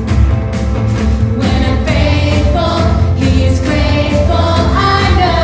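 Upbeat children's praise song: a group of children and a woman on a microphone singing along to a recorded backing track with steady bass and a regular drum beat.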